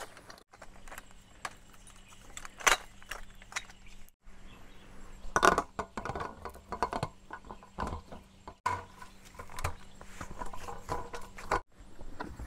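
Clinks and clatter of a folding aluminium camping table being unpacked and set up: the metal legs, stand and slatted top knocking against each other in irregular sharp knocks.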